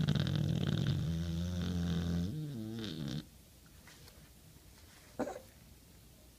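A sleeping dog snoring: one long, loud snore that shifts in pitch near its end and stops about three seconds in, then a brief fainter breath sound about five seconds in.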